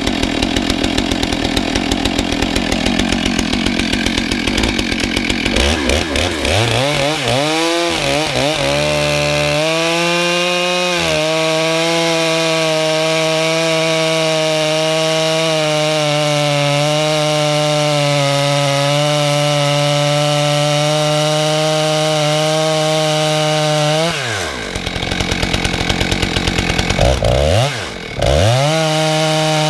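Two-stroke chainsaw idling, revved up and down a few times, then held at full throttle for about twelve seconds as it rips a log round along the grain. Near the end the engine speed drops away twice and climbs back up to full throttle.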